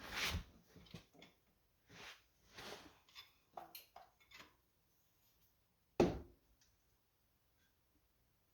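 Hand tools clinking and scraping on metal while the A/C compressor clutch bolt is being removed, with one sharp knock about six seconds in.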